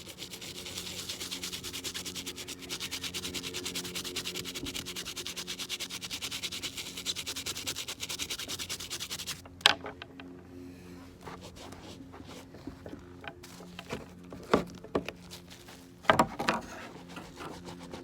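Rapid back-and-forth scrubbing on the leather side of a sneaker, cleaning the Nike swoosh. It runs for about nine seconds, then stops suddenly, and a few sharp knocks and taps follow.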